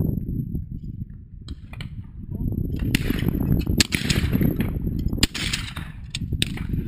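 Shotgun fired at clay targets: two sharp shots, the first about three seconds in and the second about two seconds later, each trailing off in an echo, over steady low wind rumble on the microphone.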